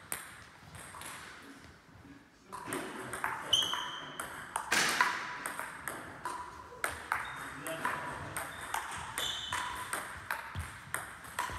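Table tennis rally: the plastic ball ticking off the rackets and bouncing on the table in quick alternation, echoing in a large hall. It starts after a short lull about two and a half seconds in.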